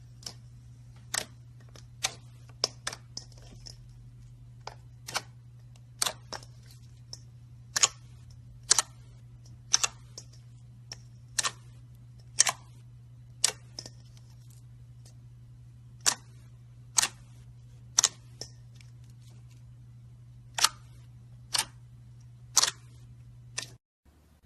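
Slime being pressed and stretched, giving sharp popping clicks roughly once a second, some in quick pairs, over a steady low hum.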